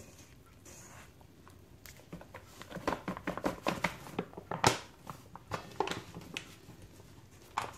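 Hands kneading a soft, sticky potato dough, with irregular squishing sounds from about two seconds in.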